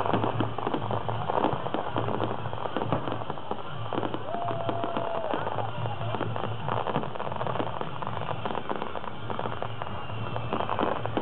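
Fireworks display: dense, irregular crackling and popping from bursting aerial shells and crackling stars, with a brief steady whistle about four seconds in.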